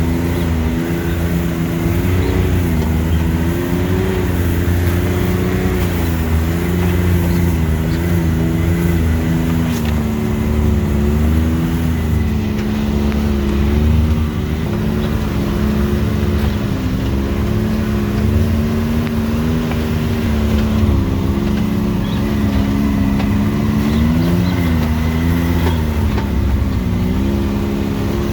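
Off-road vehicle's engine running steadily at low speed while crawling over a rough trail. Its pitch rises and falls gently again and again as the throttle is worked.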